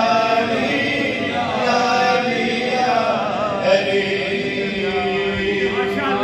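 A man chanting a manqabat, devotional Urdu verse in praise of Imam Ali, in drawn-out sung notes that glide between pitches, ending on one long held note.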